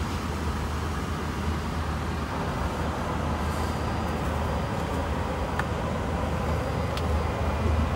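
Steady low hum and airflow hiss inside the cabin of an Airbus A330-300 on the ground before departure, with a couple of faint clicks.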